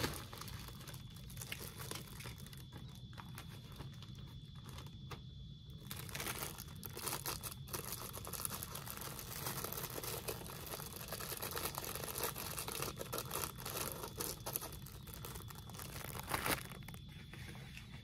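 Plastic wrapper of a sleeve of Club crackers crinkling and rustling on and off as it is opened and a cracker is pulled out, with a sharper crackle near the end.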